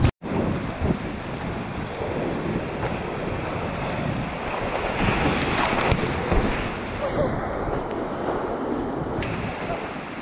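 Fast-flowing river water rushing steadily, with wind buffeting the microphone. The sound cuts out for an instant right at the start.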